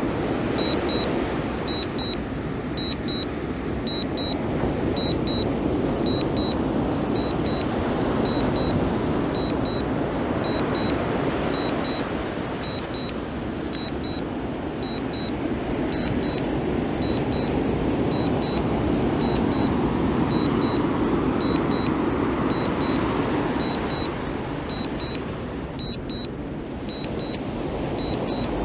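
DJI Mini 2 remote controller beeping steadily in short high beeps, about three every two seconds: the alert it sounds while the drone is in return-to-home. Under the beeps is a steady rushing noise that swells and fades slowly.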